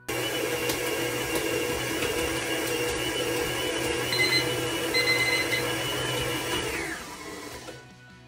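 Electric stand mixer running with its dough hook kneading a very wet ciabatta dough, olive oil just added. The motor starts abruptly, runs steadily with a hum and whine, then winds down near the end as it is switched off.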